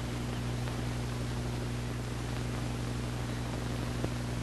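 Steady low hum under an even hiss, the background noise of the recording with nothing else going on, and one faint click about four seconds in.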